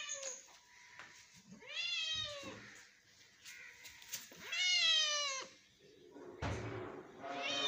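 Domestic cat meowing repeatedly: two long meows, each rising then falling in pitch, about three seconds apart, then a soft thump and a third meow beginning near the end.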